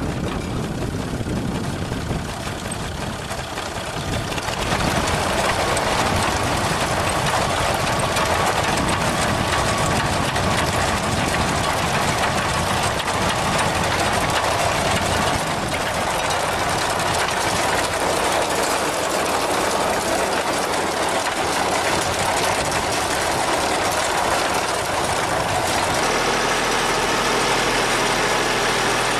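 Farm tractor engine running steadily as it pulls a potato digger through the soil, growing louder about four seconds in.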